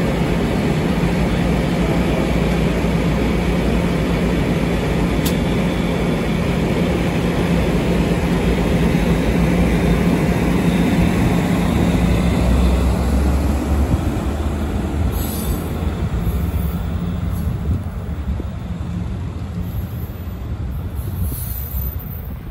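Departing Capitol Corridor passenger train, its bilevel California Car coaches rolling past on the rails with a steady low hum. The hum stops about thirteen seconds in, and the rolling fades as the cab car at the rear pulls away.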